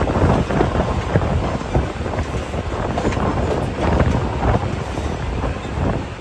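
Wind buffeting the microphone over the rumble and clatter of a moving passenger train's wheels on the rails.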